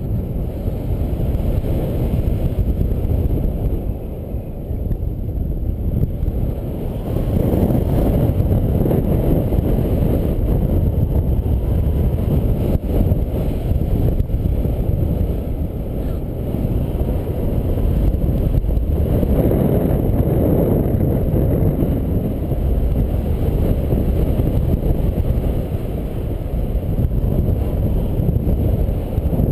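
Airflow buffeting the microphone of a camera on a paraglider in flight: a loud, low rushing noise that swells and eases, strongest about a quarter of the way in and again about two-thirds through.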